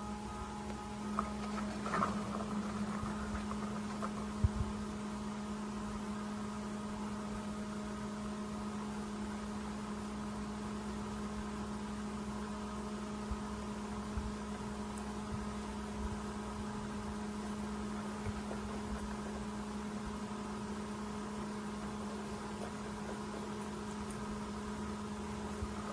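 Steady machine hum at one low pitch, with a few light clicks in the first few seconds.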